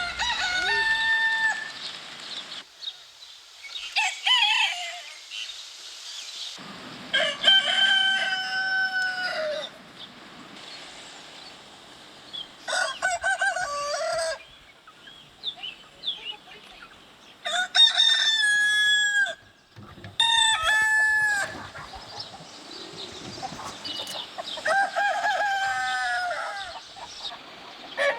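Rooster crowing again and again, a long cock-a-doodle-doo every few seconds, about seven calls in all.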